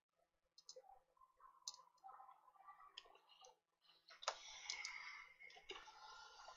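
Faint small clicks and taps of tools on the circuit board, then about four seconds in a sharp tick and a steady hiss of air starting: a hot-air rework station blowing to reheat the charging port's solder joints.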